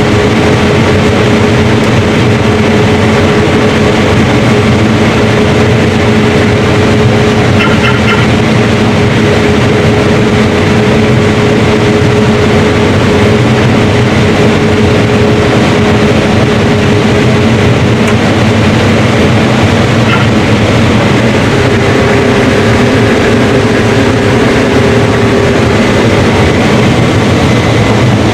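Combine harvester running steadily while harvesting corn, heard as a continuous machine drone with a steady hum.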